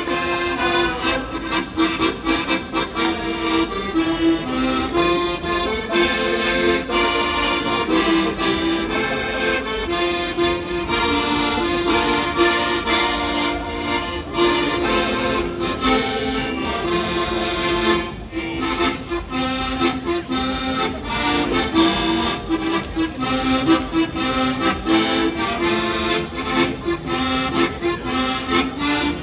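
Accordion playing a traditional dance tune over a steady beat of sharp strikes.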